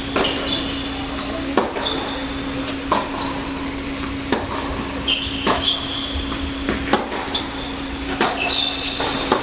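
Tennis rally on an indoor hard court: the ball struck by racket strings about every second and a half, with short sneaker squeaks on the court surface between shots, over a steady low hum in the hall.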